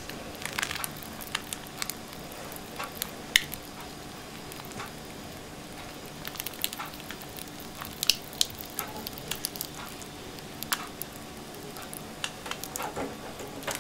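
Mayonnaise squeezed from a soft plastic pouch in thin squirts over a salad layer: faint, scattered squelches and crinkles of the pouch, a few small clicks a second at times.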